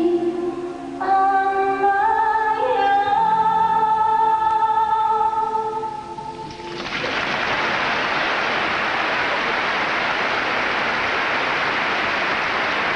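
Music with long held notes, sung or orchestral, plays for the first half. About halfway through it gives way to a steady roar of arena crowd applause and cheering.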